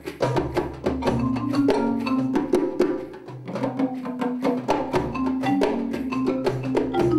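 Concert marimba played with four yarn mallets: quick runs of struck notes over ringing low bass notes, with sharp wooden clicks of percussion alongside. The playing thins out briefly about three seconds in, then picks up again.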